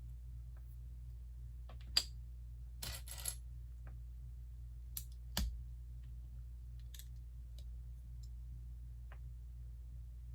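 Plastic Lego pieces clicking and tapping as they are handled and pressed together: a scattering of short, sharp clicks, a few close together about three seconds in, over a steady low hum.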